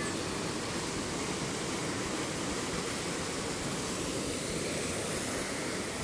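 Small waterfall pouring over rocks into a pool: a steady rush of falling water.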